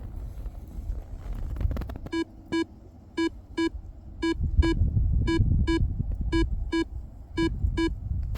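Electronic beeper sounding short beeps of one steady pitch in pairs, about one pair a second, starting about two seconds in, over a low rumbling noise.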